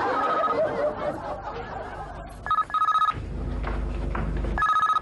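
Landline telephone ringing in short double rings: one pair of electronic trills near the middle and another starting near the end, with a low rumble between them.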